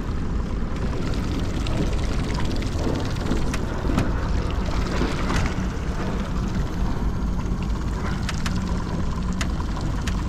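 A steady low rumble of wind and water around a small aluminium boat, with a few sharp clicks and knocks scattered through it.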